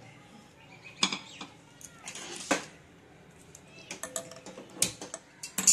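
A few sharp clicks and knocks of kitchen utensils and dishes, the loudest near the end, over a faint sizzle of beaten eggs setting in a nonstick kadhai.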